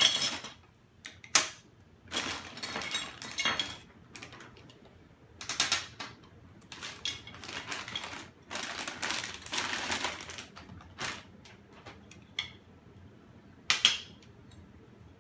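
Clear plastic zip bag crinkling as small metal planer parts and a T-handle wrench are taken out of it, with a few sharp clacks as the metal pieces are set down on a hard tabletop, the loudest about a second in and near the end.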